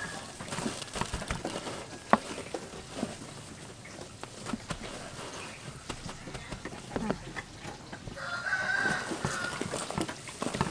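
Hands tossing chicken legs through a steel tray of dry breadcrumbs: crumbs rustling and crunching, with scattered sharp knocks on the tray, the loudest about two seconds in. A chicken calls in the background for about a second, around eight seconds in.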